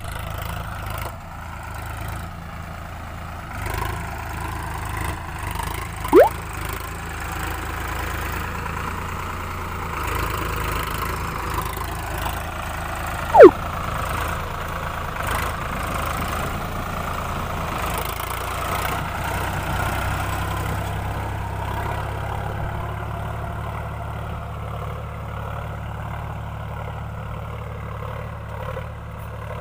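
Sonalika Sikander DI-35 RX tractor's diesel engine running steadily under full load in first high gear, pulling a channel-making ridger through dry soil. Twice, about six and thirteen seconds in, a brief loud falling chirp cuts across it.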